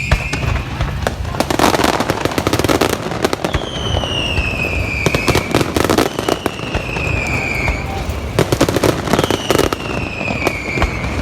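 Fireworks going off: whistling fireworks that fall in pitch, each a second or two long and about every three seconds, amid many crackling pops and bangs.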